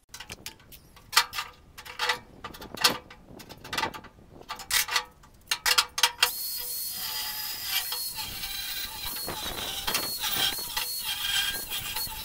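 Rectangular steel tubes clatter and knock against each other and the metal cart bed as they are handled. About six seconds in, an angle grinder starts and runs steadily against the steel, its high whine dipping again and again as it bites into the tube.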